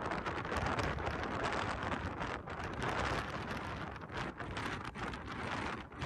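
Strong gusting wind buffeting the phone's microphone, a dense rushing noise that swells and dips from gust to gust.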